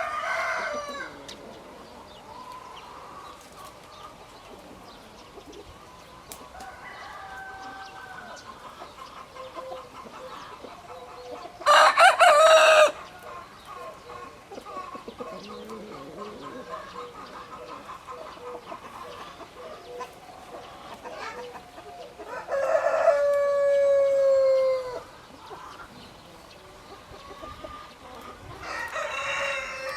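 Roosters crowing: a short, loud crow about twelve seconds in, a longer crow that falls in pitch at its end a little later, and another crow starting near the end, with quieter chicken calls and clucks in between.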